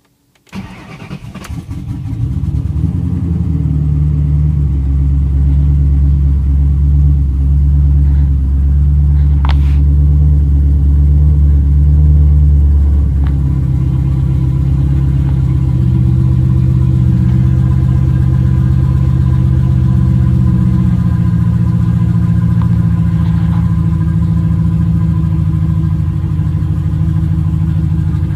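Ford Mustang GT's built 4.6-litre three-valve V8 starting about half a second in, on its first start after a vacuum leak repair. It runs at a fast idle, then settles to a lower, steady idle about halfway through.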